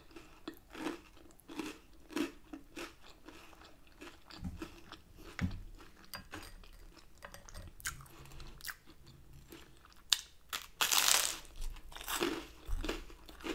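A person chewing and biting food in an irregular run of crunches, with one louder crunch about eleven seconds in.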